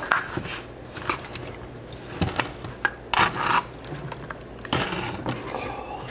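Ingredients being stirred in a pot with a utensil: irregular knocks and scrapes, with a couple of longer scraping strokes in the middle.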